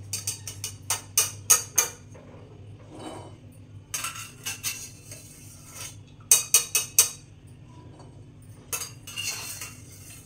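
Metal wire-mesh strainer ladle clinking and scraping against a steel pressure cooker as boiled chickpeas are scooped out, in four short bursts of quick clinks.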